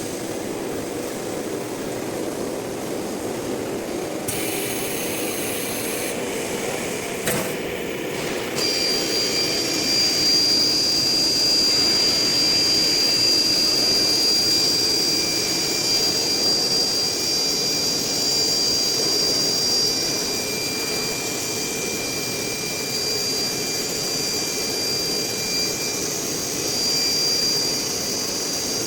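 Blue Elephant ELECNC1836 CNC nesting router running, a steady mechanical noise with a high, steady spindle whine that comes in about eight seconds in and holds. A single click comes just before the whine starts.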